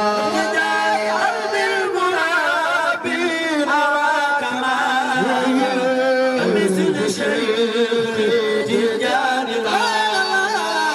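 Men singing a Sufi religious praise chant into microphones. The lead voice carries a melody with quick wavering turns, and a second voice overlaps at times.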